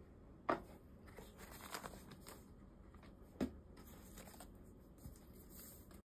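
Hands unpacking a keyboard box: faint rustling of the packaging and its frosted plastic cover sheet, with two sharper knocks about half a second in and about three and a half seconds in.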